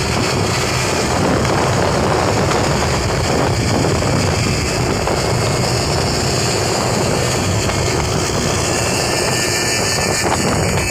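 Motorcycle and motorcycle-rickshaw engines running at speed, heard from a moving motorcycle, with steady rushing road and wind noise.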